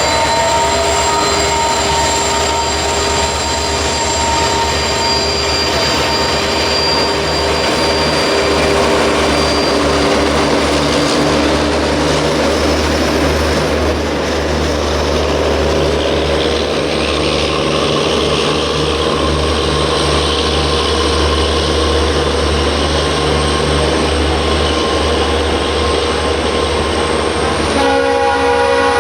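WDP-4 diesel-electric locomotive's two-stroke V16 engine humming steadily under load as the train slowly pulls away, with the rumble of rolling stock on the rails. A multi-tone horn starts sounding near the end.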